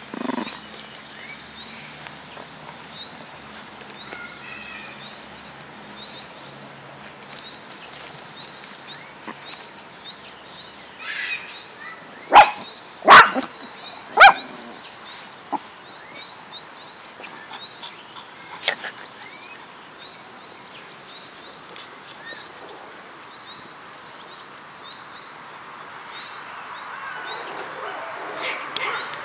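A small dog yapping: three sharp, loud barks in quick succession about halfway through, with a few fainter yaps later. Birds chirp in the background throughout.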